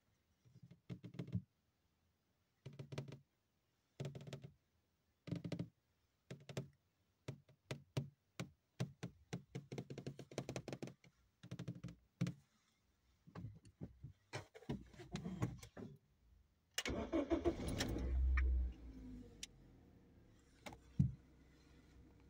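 A run of short knocks and thumps, then about 17 seconds in a car engine cranks and starts, settling to a low steady run.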